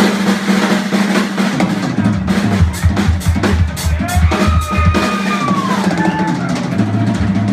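Live rock band playing: drum kit beating hard over electric bass and electric guitar, coming in with a sudden loud hit. A held high note in the middle bends downward.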